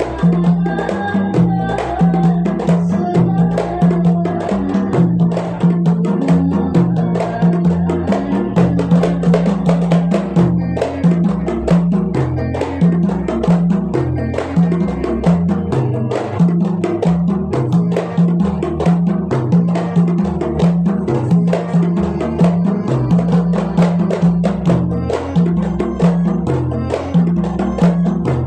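Instrumental passage of a qasidah song: a steady pulsing bass line under busy, even percussion with wood-block-like clicks and melodic lines above.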